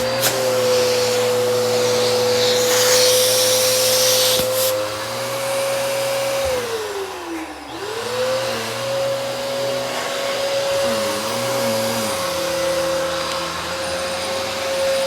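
Vacuum cleaner motor running with a steady whine. About halfway through it winds down in pitch, then spins back up to full speed.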